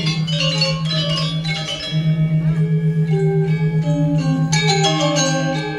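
Balinese gong kebyar gamelan playing: bronze metallophones ringing in quick runs of notes over a steady, pulsing low tone, which drops out briefly about two seconds in.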